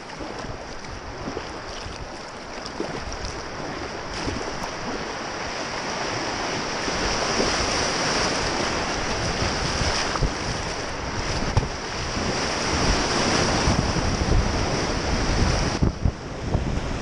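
Rushing whitewater of a river rapid around a kayak, a steady roar that grows louder as the boat runs into the waves, with wind buffeting the microphone.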